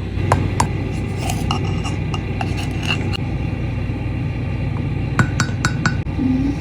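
A spoon clinking and scraping against a mug, about a dozen sharp clinks with a short ring, in scattered groups. A steady low hum runs underneath.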